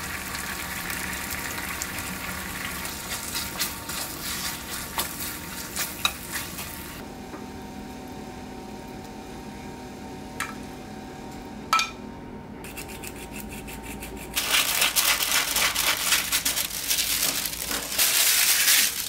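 Chopped steak sizzling in sauce in a frying pan, with small pops and scrapes. About halfway through it goes quieter, and metal tongs clink twice on a glass plate. Near the end comes a louder stretch of paper rustling and light clatter.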